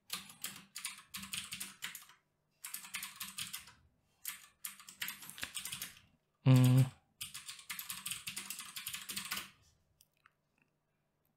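Typing on a computer keyboard in quick runs of keystrokes, stopping about ten seconds in. A brief sound of a person's voice cuts in about six and a half seconds in.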